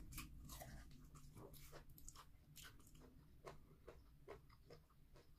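Faint chewing of a mouthful of starch and egusi soup, close to the microphone: soft, irregular wet mouth clicks and smacks, a few a second.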